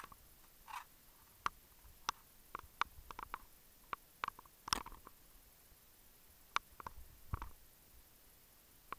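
Faint, irregular clicks and ticks, a dozen or so scattered unevenly, with a slightly fuller burst near the middle and a low thud about three-quarters in.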